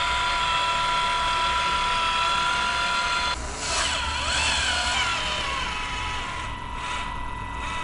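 Motor of a cordless urethane caulking gun running with a steady whine as a bead of urethane is laid around the windshield frame. It cuts out about three seconds in, leaving a wavering, fading tone.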